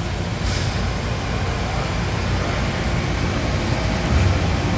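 Steady rumbling din inside an indoor inline hockey rink: skate wheels rolling on the plastic sport-court floor over a constant hum from the building, with no single event standing out.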